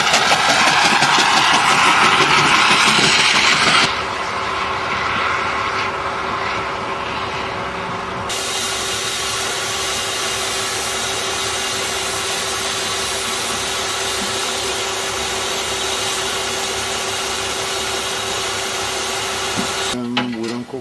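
Steam train pulling out of a station: loud steam hiss and exhaust that drop off suddenly about four seconds in, then the wooden carriages rolling past on the rails with a steady even noise and a held hum.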